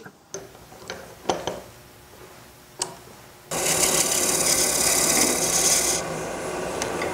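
A few light clicks and knocks as the wooden lid blank is tightened in the lathe's scroll chuck, then, about three and a half seconds in, a loud, dense hiss of a turning tool cutting the end of the spinning blank on a wood lathe, over the lathe's steady hum. The cut eases off about a second before the end and the lighter cutting goes on.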